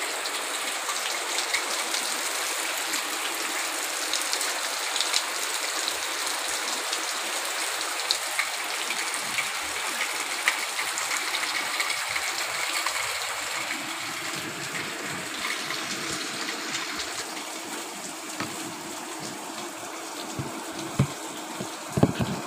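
Heavy rain falling steadily, an even hiss with scattered ticks of drops. A few short low thumps near the end.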